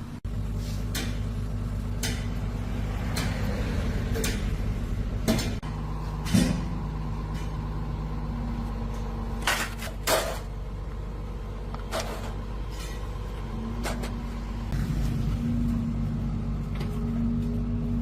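Heavy vehicle engine running steadily, with intermittent sharp metallic knocks and clanks over it, the loudest about a third of the way in and just past halfway.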